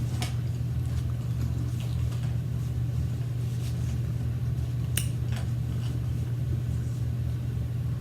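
Steady low hum with a few soft clicks and smacks of chewing, the sharpest click about five seconds in.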